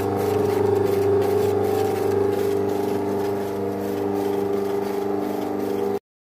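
Rotary floor scrubbing machine's electric motor running with the pad drive plate spinning freely, a steady even hum, on a freshly replaced bearing that now runs properly. It cuts off suddenly near the end.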